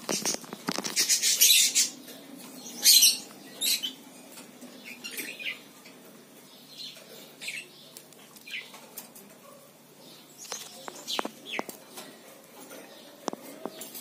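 Rainbow lorikeet flapping its wings in a wire cage, loudest in a burst over the first two seconds and again about three seconds in, followed by scattered short chirps and clicks.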